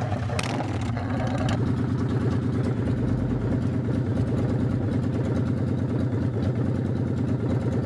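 Motorcycle engine just started, settling within the first second and a half into a steady, even idle.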